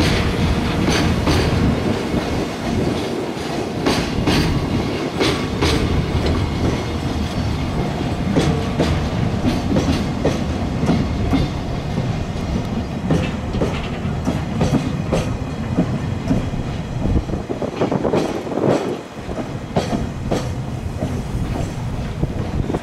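Freight train hauled by an EF64 electric locomotive rolling through the station, its wagons' wheels clacking steadily over the rail joints beneath a continuous rumble.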